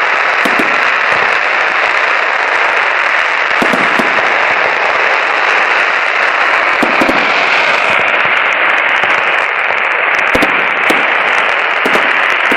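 Fireworks and firecrackers going off: a dense, continuous crackle with scattered sharper bangs every second or two.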